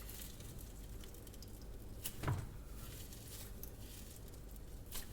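Faint scraping and small handling noises from a tool picking at hardened chocolate stuck to a smartphone. There is a short sharper sound about two seconds in and a click near the end.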